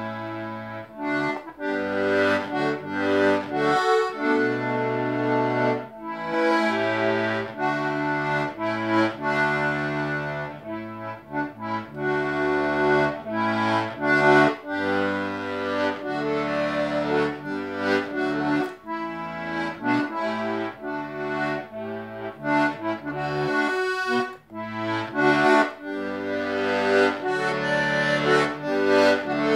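Melodeon (diatonic button accordion) playing a tune, a melody over changing bass notes and chords. Its new reeds are freshly waxed in and not yet tuned.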